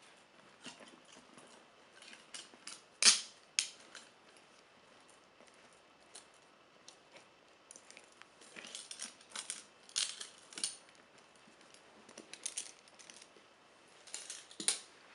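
Metal transport-shackle chains and leg irons clinking and rattling as they are handled and fitted around a leather boot, in short irregular clinks with the loudest clank about three seconds in.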